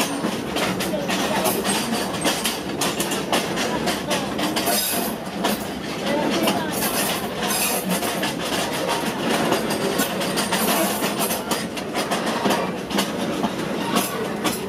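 Passenger train carriage running along the track: a steady rumble with constant rattling and clatter.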